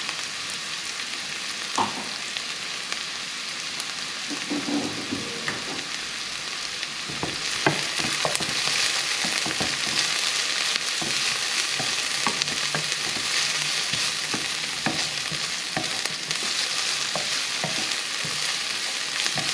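Diced onions sizzling steadily in oil in a non-stick frying pan as they sweat down. From about seven seconds in, a wooden slotted spatula stirs them, with scattered knocks and scrapes against the pan, and the sizzle grows louder.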